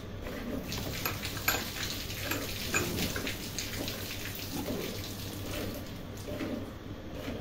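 Milk squirting in rhythmic streams into a metal pail as a cow is milked by hand.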